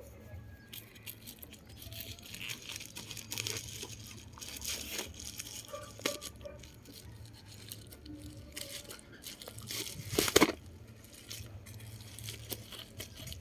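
Parcel packaging being torn open and crinkled by hand in irregular rips and rustles, with one louder rip about ten seconds in.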